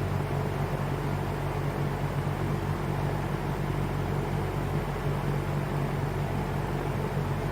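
1983 Lakewood P-58 20-inch box fan running steadily: an even rush of air over a low, constant motor hum.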